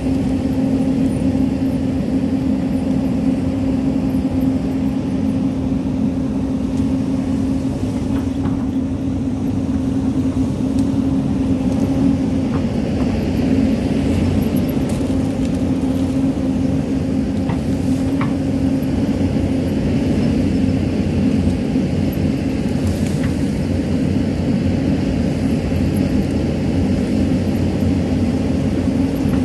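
Hyundai excavator's diesel engine running steadily under load while the bucket digs into an earth bank, with a few light clicks in the middle.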